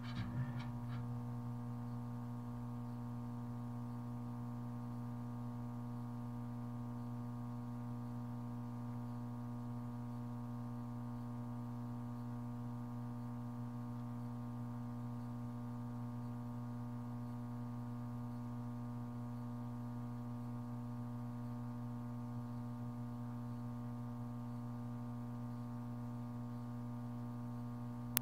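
Steady electrical hum, a low drone with several higher tones above it, with a few faint clicks just at the start.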